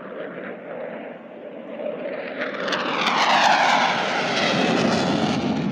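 JF-17 Thunder fighter's single turbofan jet engine during a low flypast, growing louder and then sweeping down in pitch as the jet passes.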